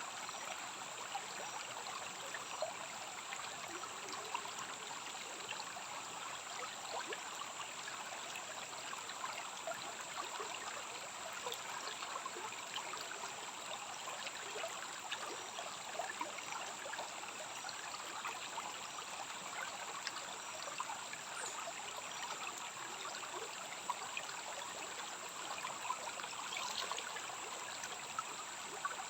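Stream water trickling steadily, with a constant high-pitched drone over it.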